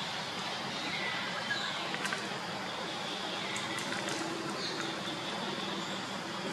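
Steady outdoor background hiss with a few faint high chirping calls that slide in pitch and a handful of short clicks, the clicks clustered around two seconds in and again around four seconds.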